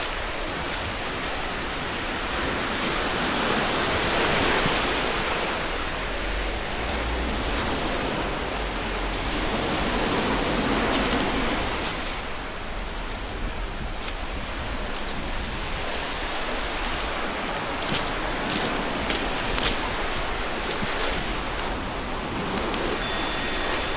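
Sea waves washing ashore, swelling and easing roughly every six seconds, with a few sharp clicks and a short high tone near the end.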